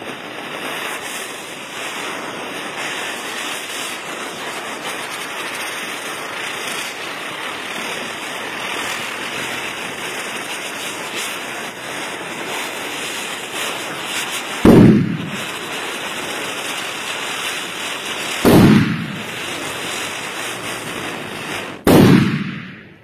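A small ground firework hissing steadily as it sprays sparks. About two-thirds of the way in, the firecrackers laid around it start to go off: three loud bangs, roughly four seconds apart. The hiss stops at the last bang.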